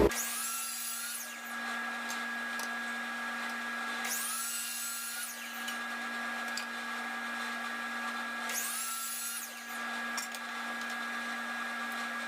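A power saw cutting wood in short bursts of about a second, repeating roughly every four seconds; each burst starts with a rising whine as the motor spins up. A steady hum runs underneath.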